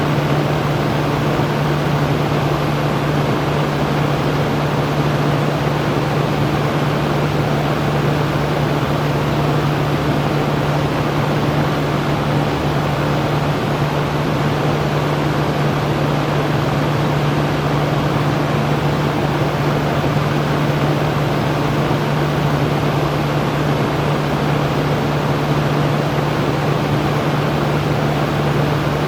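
Electric fan running steadily: an even rush of moving air over a constant low hum, with no changes.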